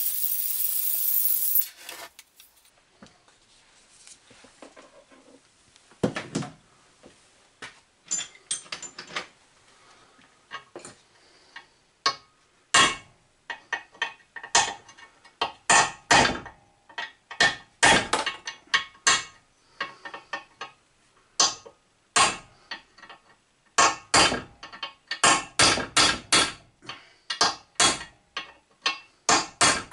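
Oxy-propane torch hissing, cut off about two seconds in. Then repeated sharp metallic hammer taps on the engraving machine's base casting, working the heat-loosened, seized column free. The taps come in quick clusters and grow more frequent toward the end.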